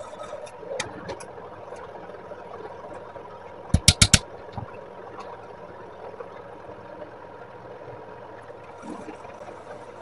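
Four quick, sharp knocks in a row, about four seconds in, over a steady faint hum.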